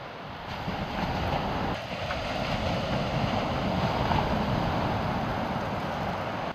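Wind buffeting the microphone over the steady wash of surf on the beach, a noisy rush that swells about a second in and then holds.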